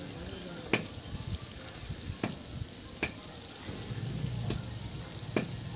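Sliced onions frying in oil in an aluminium pot over a wood fire: a steady sizzle, with a few sharp pops about a second apart.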